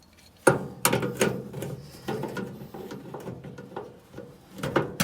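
Hand tool clicking and scraping against a metal nut and grille bracket, while a flat nut on the lower grille is worked loose. It opens with two sharp knocks about half a second in, then a busy run of small clicks and scrapes, and another cluster near the end.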